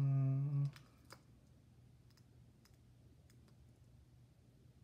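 A woman's voice holding a steady hummed "mmm" for under a second, then faint, scattered light clicks over a low room background.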